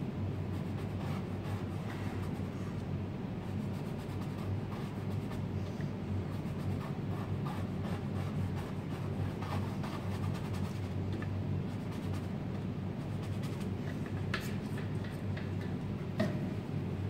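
Painting tool rubbing and scratching in short strokes across a large canvas, over a steady low room hum. A single sharp tap near the end.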